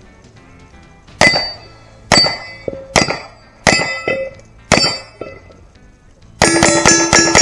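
Pistol shots striking AR500 steel Texas Star plates, each hit ringing out with a metallic clang. Five shots come about a second apart, then a fast string of about five more shots near the end, all ringing on steel.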